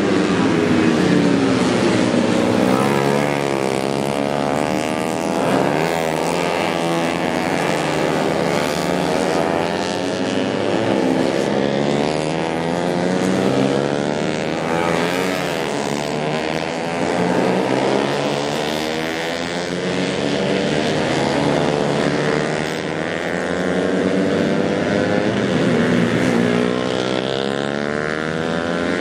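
Several 125cc four-stroke underbone racing motorcycles running hard together, their engine notes rising and falling and overlapping as they accelerate, shift and pass.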